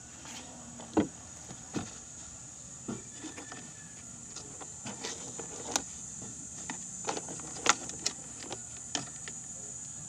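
Scattered sharp clicks and light knocks, about a dozen, from hands handling parts and the phone, over a steady high-pitched insect drone.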